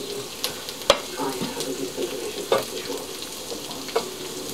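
Steady sizzle of food frying in a skillet on the stove. Three sharp knocks on the countertop, about a second and a half apart, come as biscuit dough is flattened with a glass cup.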